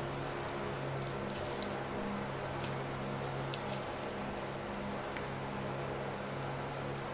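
Gram-flour pakora batter deep-frying in hot oil in a steel pot: a steady sizzling hiss with a few small pops. A low steady hum runs underneath.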